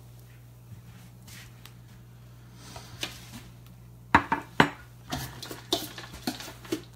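Kitchenware clattering: utensils and dishes knocking and clinking, faint at first, then a quick run of about eight sharp knocks in the second half. A steady low hum lies beneath.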